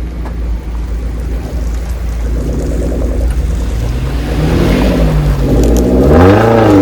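Off-road 4x4's engine running with a low rumble. From about halfway it revs up and down in waves under throttle, and it is loudest near the end.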